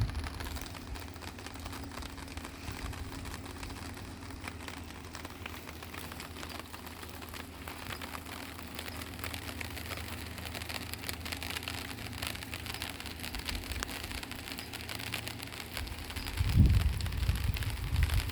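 Steady rain falling in a thunderstorm, a fine patter of drops. Near the end come two loud, low rumbling surges.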